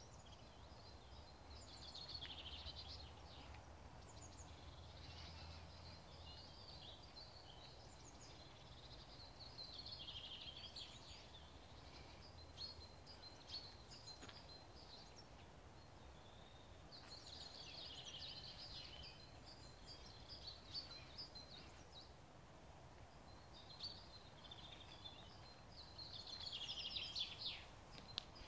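Faint birdsong: several small birds singing and calling in short chirps and trills that come in clusters every few seconds, over a faint outdoor hiss. A faint low rumble lies underneath for the first several seconds.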